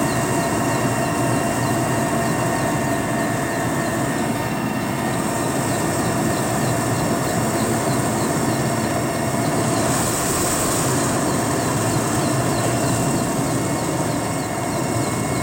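Mil Mi-8 helicopter's two turboshaft engines and rotor running steadily, heard from aboard during low flight: a dense, loud rumble with a high, steady turbine whine over it.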